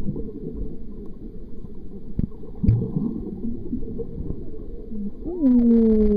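Water heard from underwater: dull sloshing and bubbling as a swimmer dives and strokes, with a couple of sharp knocks. About five seconds in, a muffled, held voice starts up, gliding in pitch.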